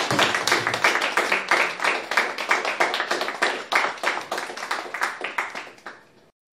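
Audience applauding, dense hand claps that thin out and fade in the last second or so before cutting off.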